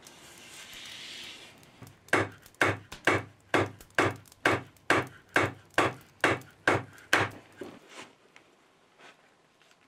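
A hatchet head pounding a dried animal tendon on a wooden block, about a dozen blows at roughly two a second, the last few lighter. The pounding breaks the sinew down into loose fibres for backing a bow.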